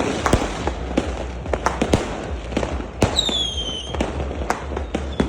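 Fireworks going off: an irregular run of sharp bangs and pops over a low rumble, with a falling whistle lasting about a second about three seconds in.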